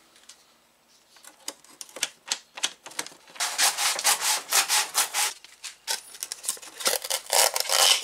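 Scissors cutting through pink foam insulation board: a quick, irregular run of cutting strokes, sparse at first, thickest from about three and a half to five and a half seconds in and again near the end.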